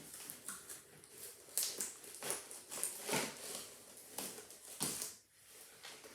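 Irregular rustling of packaging with sharp clicks and knocks as small shelf boards and plastic peg pieces are handled and taken out of their box.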